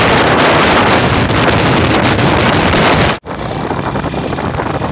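Wind blasting the microphone on a moving motorcycle, over the running engines of motorcycles. About three seconds in it cuts off suddenly to a quieter stretch of the same ride, with engine hum and less wind.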